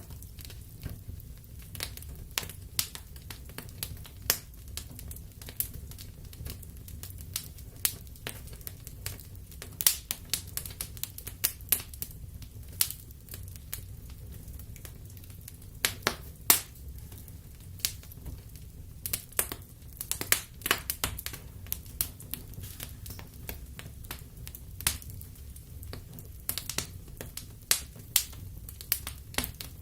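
Wood fire burning in a fireplace: irregular sharp crackles and pops from the burning logs over a steady low rumble of the flames.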